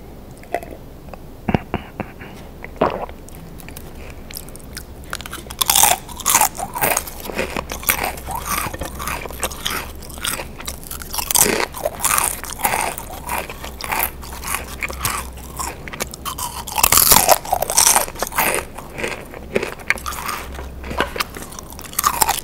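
Close-miked crunching and chewing of Pringles potato crisps, the crisp bites coming thick and loud from about five seconds in. Before that there are only a few quiet gulps and clicks from a drink.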